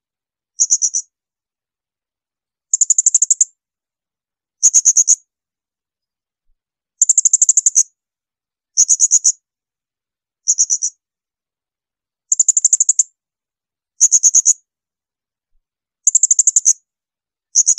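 Blue-crowned hanging parrot (serindit) giving shrill, high-pitched 'tembakan' calls: short bursts of rapid, very high notes, each under a second long, repeated about every two seconds with silence between them.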